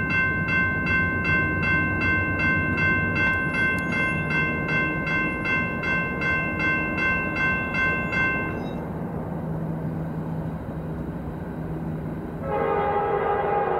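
Grade-crossing warning bell ringing about three strokes a second, stopping about eight and a half seconds in, over the low rumble of an approaching diesel freight train. Near the end the lead locomotive's air horn starts to blow, a chord of several notes.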